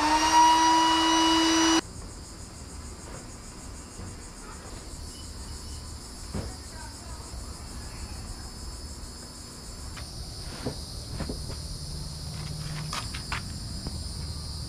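A loud, steady pitched tone that cuts off abruptly just under two seconds in, then insects chirring steadily in a high, finely pulsing drone, with a few faint clicks.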